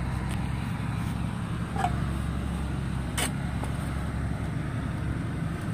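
A vehicle engine idling steadily, a low hum, with one sharp click a little after three seconds in.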